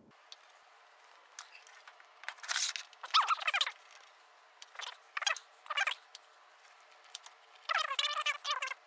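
Fast-forwarded handling noise as a Celestron 8-inch Schmidt-Cassegrain tube is lifted and fitted onto an equatorial mount: a series of short, high, chirpy squeaks and scrapes, the longest about three seconds in and near the end.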